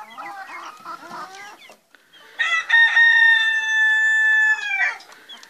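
Rooster clucking softly, then about two seconds in crowing once: a loud, long call held at one steady pitch for about two and a half seconds, dropping at the end.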